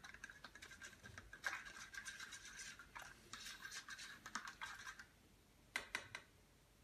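Spoon stirring yeast and water in a paper cup: quick, faint scraping strokes against the cup that stop about five seconds in, followed by a couple of light clicks.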